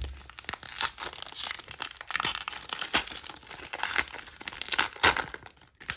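Panini Prizm WWE White Sparkle trading-card pack wrapper being torn open and crinkled by hand, a dense run of crackling crinkles.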